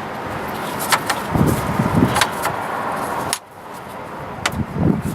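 Sharp clicks and knocks of a serpentine belt being worked by hand onto a car engine's pulleys, a few seconds apart, with some low dull thuds, over steady background noise. The background drops off suddenly a little past halfway.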